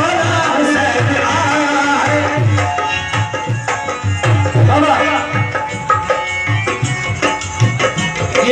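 Live qawwali music: hand drums keep a steady beat, two to three strokes a second, under a sustained melodic line.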